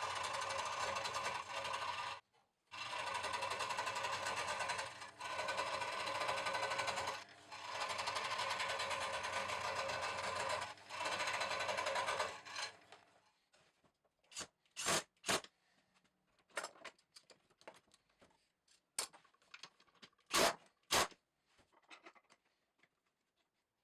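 A handheld electric power tool running in several bursts of a few seconds each, with short breaks, for about the first half. It then stops and is followed by a string of sharp knocks and clicks.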